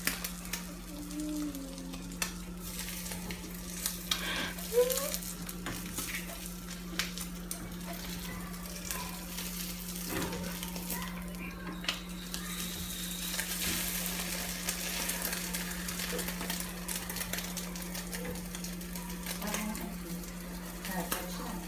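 Egg omelette frying in oil in a frying pan: a steady sizzle with scattered small crackles and spits, over a steady low hum.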